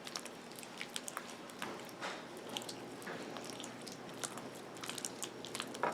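Freshly activated glue slime being kneaded by hand: irregular small wet clicks and squelches, the slime still a little sticky.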